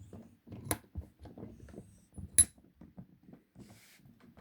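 Handling of a laminated steel padlock and metal lock picks: soft knocks and rustles throughout, with two sharp metallic clinks, the louder one about two and a half seconds in.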